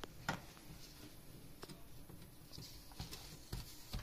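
Light clicks and taps of parts and tools being handled inside an opened laser machine, about five spread unevenly, the loudest just after the start.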